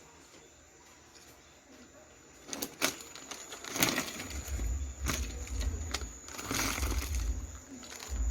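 Close-miked eating: crunchy bites and chewing of a sub sandwich packed with Takis chips, beginning a few seconds in as a string of sharp crunches with low thuds.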